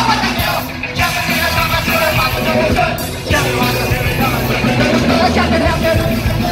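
Live ska-punk band playing loud: electric bass, guitar and drums.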